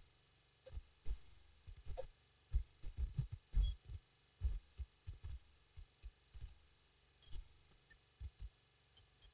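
Wind buffeting an outdoor camera microphone: irregular low thumps and rumbles, several a second, heaviest in the middle stretch.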